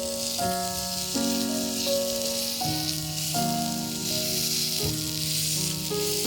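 Steady sizzling of food frying over a fire pit, under background music of held chords that change about every second.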